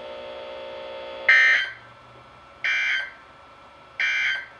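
Emergency Alert System end-of-message data signal: three short, identical bursts of buzzy two-tone digital data, each about a third of a second long and spaced a little over a second apart, marking the end of the alert.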